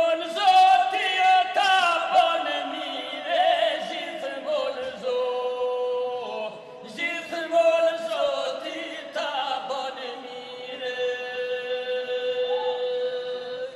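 Men singing an unaccompanied Albanian folk song (putira) in two parts: one voice holds a steady drone while another carries the melody in long, ornamented notes. The singing ends near the close.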